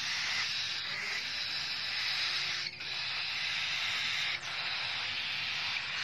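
Cockatiel chicks giving their hissing food-begging call as they are hand-fed, a steady rasping hiss broken by brief breaks about every two seconds.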